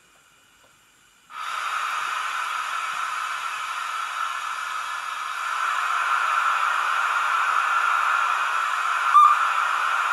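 Digital steam-locomotive sound from a LokSound V5 micro decoder in an 009 model of a Lynton & Barnstaple Baldwin, played through a tiny sugar-cube speaker. A steady steam hiss starts suddenly about a second in and runs on, with one short sharp chirp near the end.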